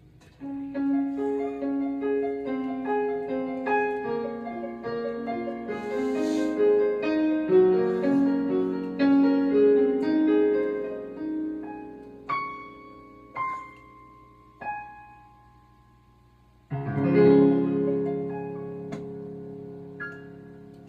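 Solo piano music: a flowing melody of held notes, then a few separate notes that each ring and fade, ending on a loud chord a few seconds before the end that rings out slowly.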